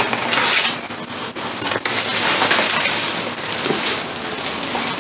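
Packaging crinkling and rustling as it is handled, with a few sharp clicks.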